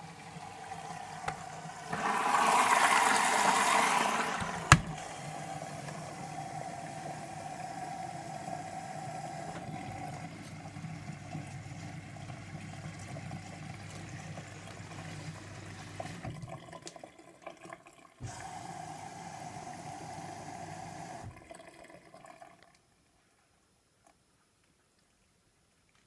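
Gorenje SensoCare front-loading washing machine running in its test mode and filling with water: water rushes steadily into the drum with a low hum, loudest for a couple of seconds near the start. A sharp click comes just after that. The flow cuts out after about sixteen seconds, restarts with a click, then stops a little after twenty seconds.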